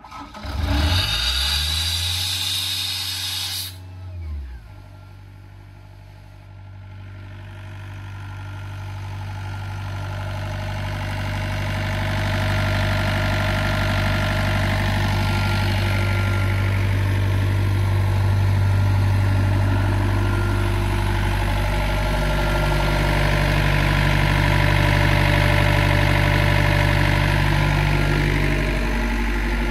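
The four-cylinder Yanmar diesel of a Doosan 7/41 portable air compressor starts at the beginning with about three seconds of loud rushing noise. It then runs steadily at idle, getting louder over the first dozen seconds.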